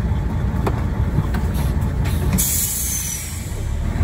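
Heavy diesel truck engine rumbling steadily, heard from inside the cab, with a short hiss about halfway through.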